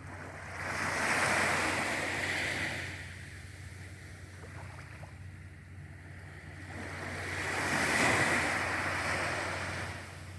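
Sea waves washing in twice: one swell of surf rises about half a second in and fades after about three seconds, and a second builds from about six and a half seconds and fades near the end. A low steady hum runs underneath.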